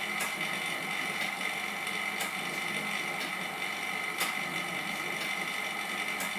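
Semi-automatic LCD separator running, its motor drawing the cutting wire back and forth across the phone screen to separate the glass. A steady machine whine with a short click about once a second as the wire reverses direction.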